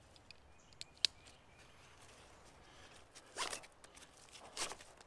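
Nylon webbing straps being pulled tight through their buckles around two short logs lashed to a pack. There is a sharp click about a second in, then two short bursts of strap sliding through the buckle near the end.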